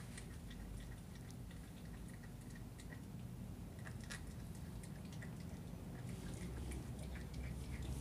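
Miniature schnauzer puppy gnawing and chewing a raw chicken drumstick: faint wet mouth sounds and scattered small clicks of teeth on the meat and bone, the sharpest about four seconds in.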